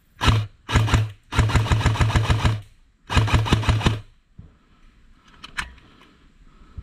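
Electric airsoft rifle (AEG) firing four full-auto bursts, its gearbox motor whirring under a rapid run of shots; the third burst is the longest, about a second.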